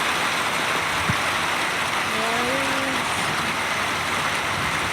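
Steady heavy rain, an even hiss of falling water with no break.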